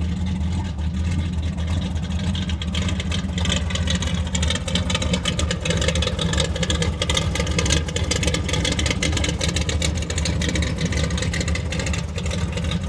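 1987 GMC Sierra Classic's 355 small-block V8, a 350 bored 30 over with a 270H Magnum cam and Edelbrock Thunder Series carburetor, idling warm. It runs steadily with a slight lope from the cam.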